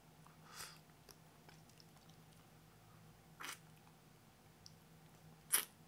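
Faint mouth and breath noises from pressing a pre-made gold grill onto the upper teeth: three short hissing sounds, the last and loudest near the end.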